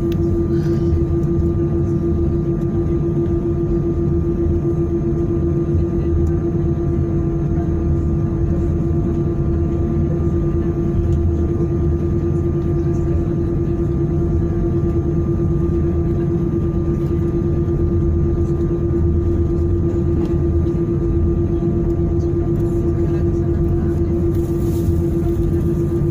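Airbus A319 cabin noise as the jet taxis: a steady engine hum with one strong unchanging tone over a low rumble, heard from inside the cabin.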